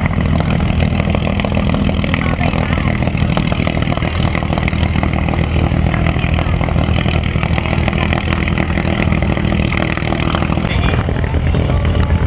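Piston engines of WWII fighter planes idling on the flight line: a steady, loud, low drone.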